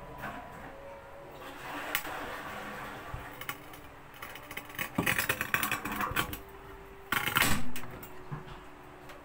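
Hand-turned tile cutter's wheel scoring across a glazed tile with a gritty scraping sound. It comes in two passes, about five seconds in and again near the end.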